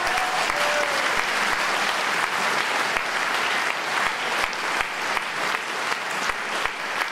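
A large audience applauding steadily. The individual claps become more distinct in the second half as the applause thins out a little.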